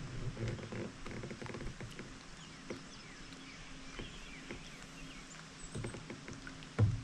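Baitcasting reel being cranked softly as a lure is retrieved, with faint bird chirps around it and a single sharp knock near the end.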